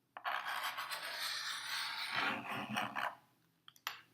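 A marker scratching across a surface while drawing a circle: a scratchy rubbing for about three seconds, then a couple of faint clicks.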